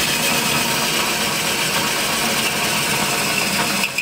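DeWalt cordless drill boring a bolt hole through the rusty sheet-steel cab floor of a Ford F100, running steadily at speed as the twist bit cuts the metal. The sound eases off a little near the end.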